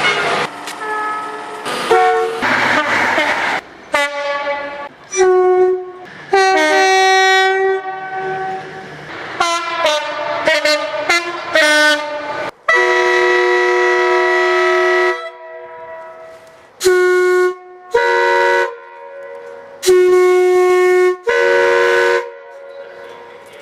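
A rapid series of horn blasts from different British diesel and electric trains, edited back to back so that each starts and stops abruptly. Several sound two notes in turn, low then high, and one long blast about halfway through lasts roughly two and a half seconds.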